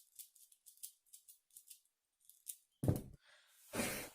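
Tiny 2 cm 3x3 puzzle cube's layers clicking faintly as they are turned, a few light clicks a second. Near the end come a louder knock and a short rustle.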